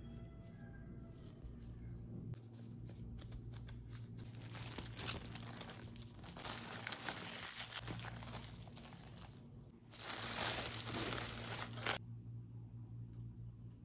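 Plastic cling film crinkling and crackling as it is pulled and stretched over a glass bowl. A louder stretch of crinkling, about two seconds long, comes near the end and cuts off abruptly.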